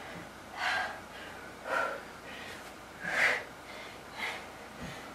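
A woman's heavy breathing during side-lying tricep push-ups: four forceful, breathy exhalations about a second apart, one with each push of a fatigued arm.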